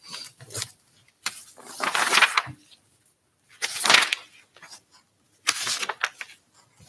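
Paper rustling and shuffling close to a table microphone, in three separate bursts with a few small clicks between.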